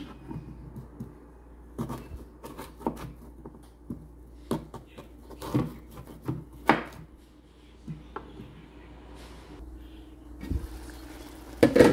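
Kitchen knife slicing peeled green mango on a wooden cutting board: irregular knocks of the blade coming down through the fruit onto the board. A few louder knocks come near the end.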